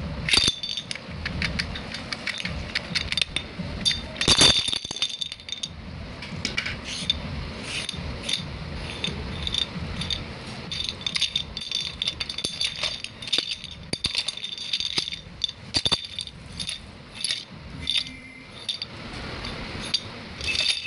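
Small plastic dominoes clicking and rattling against each other and against a toy domino train's clear plastic body as they are handled, in many quick, irregular clacks.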